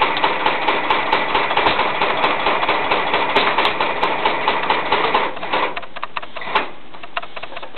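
Highlead GA1398-1 long-arm industrial sewing machine stitching through thick lifting-sling webbing in a fast, even rhythm, stopping about five seconds in. A few clicks and a knock follow.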